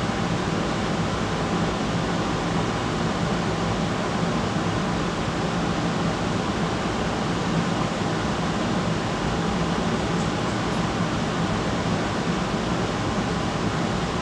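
Steady rushing noise, even and unbroken, with nothing standing out of it.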